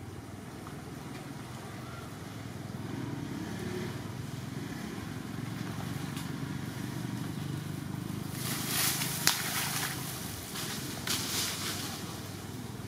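Water splashing in a shallow muddy puddle as a young macaque wades out of it: two short bursts of splashing about eight and eleven seconds in, with one sharp click in the first. A steady low rumble runs underneath.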